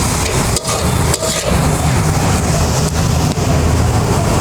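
Greens frying and sizzling in an open pan, scraped and stirred with a spatula a few times in the first second and a half, over a steady low rumble.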